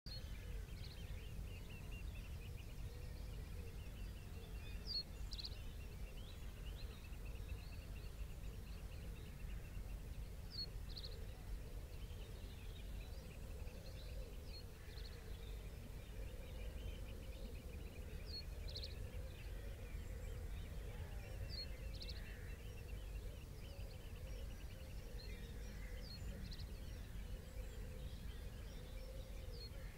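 Estuary ambience: a steady low rumble under distant birds. Short high bird calls come every few seconds, with a faint rapid trilling running behind them.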